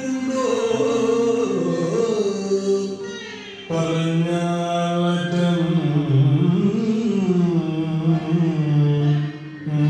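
Indian classical singing in Carnatic style, the accompaniment for a Mohiniyattam dance. A single voice sings slow phrases that glide and waver in pitch over a steady held drone. The voice drops away briefly about three seconds in, then resumes.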